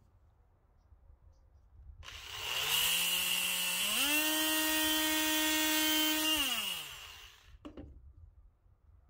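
Ridgid JobMax oscillating multi-tool with a semicircular saw blade switched on. Its buzzing whine rises in pitch, steps up to a higher speed, holds steady for about two seconds, then winds down as it is switched off. A couple of clicks follow near the end.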